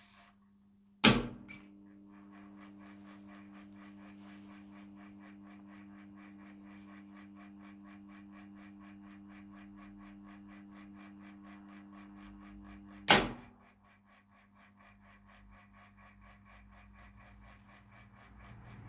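Arndt MPK 02 fire-alarm program switching unit running a test: a relay clicks in loudly about a second in, followed by a steady electrical hum with rapid, even ticking from its timing mechanism. About twelve seconds later a second loud click switches it off and the hum stops. The twelve-second on phase matches one tone of the German fire-alarm signal pattern.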